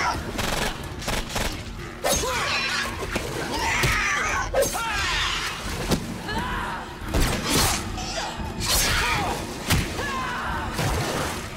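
Action-film fight sound mix: many hits and thuds with water splashing, and cries and snarls, over background music.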